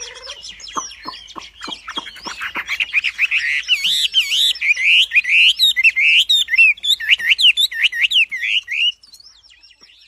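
A wambi songbird singing energetically: a fast, continuous string of rising and falling whistled notes, opening with a run of sharp clicking notes and growing louder before stopping abruptly about nine seconds in.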